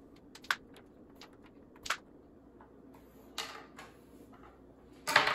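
A few faint, sharp clicks spaced out about a second apart, then soft scuffs: wooden crokinole discs set down and slid by hand on the board. A short rush of noise comes near the end.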